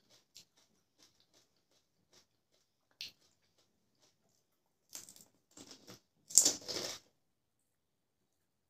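Crisp fried golgappa (pani puri) shells crunching as they are bitten and chewed, close to the microphone. A few faint crackles come first and a sharp crack about three seconds in. The loudest crunching comes in short bursts between about five and seven seconds in.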